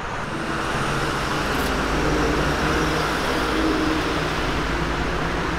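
Road traffic running steadily along the highway, a continuous rumble and tyre hiss that swells slightly in the middle.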